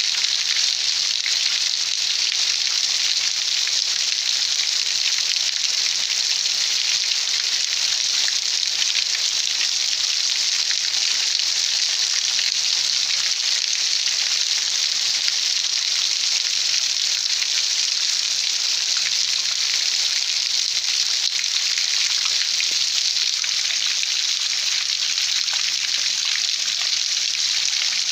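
Heavy rain pouring down in a steady, dense hiss, with rainwater running over the paved street.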